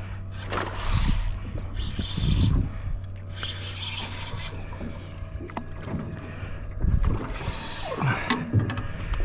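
Fishing-boat sounds on open water: a steady low hum under several short hissing rushes and scattered clicks.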